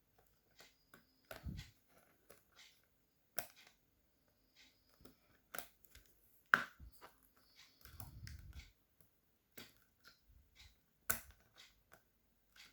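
Scattered sharp plastic clicks and snaps as a Dell Vostro 3360 laptop's keyboard is pried loose from its retaining clips, with a few dull knocks of handling. The sharpest snaps come about six and a half and eleven seconds in.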